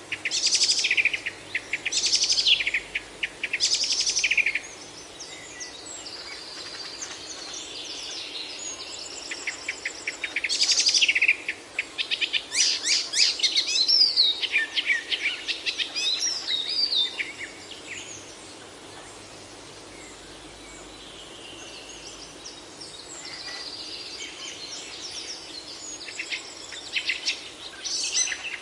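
Several songbirds singing and chirping, with repeated trilled and whistled phrases, loudest in the first few seconds and again midway, over a steady background hiss.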